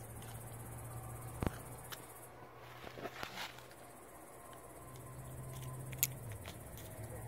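Crickets chirping steadily in a high, fast pulsing trill, with a few short sharp clicks and scratches on top, the loudest about six seconds in.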